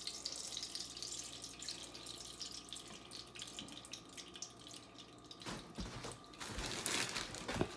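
Oil from a ladle poured into a hot nonstick frying pan, then sizzling and crackling as it heats, growing louder near the end.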